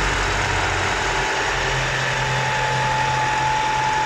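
2010 Ford Fusion Hybrid's 2.5-litre four-cylinder petrol engine idling steadily on its old oil, before an oil change or friction additive, with a thin high whine over the hum. The hum steps up slightly in pitch about a second and a half in.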